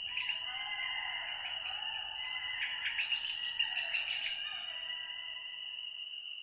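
A golden jackal pack howling in chorus: wavering wails mixed with high yelping calls, rising to a peak about halfway through, then fading.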